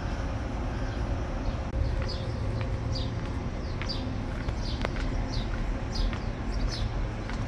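A small bird chirping repeatedly, short high downward calls about every half second, starting about two seconds in, over a steady low hum.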